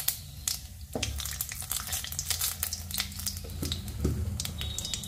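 Cumin seeds, a bay leaf and a dried red chilli sizzling in hot mustard oil, with frequent sharp crackles and pops as the cumin seeds spit out of the oil, over a low steady hum. This is the tempering (tadka) stage of frying whole spices.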